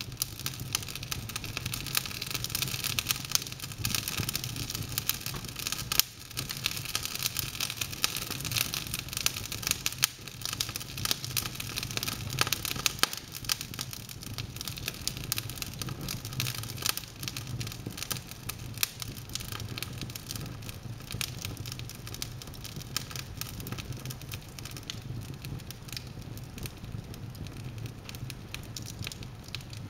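Wood logs burning in an open fireplace, crackling with many irregular pops and snaps over a steady hiss and a low hum.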